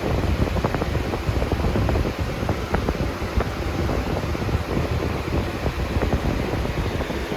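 2003-04 Lasko model 3725 box fan running on high: a steady rush of air with a low rumble and frequent rattling clicks. The fan shakes a lot, which the owner suspects comes from the blade hub.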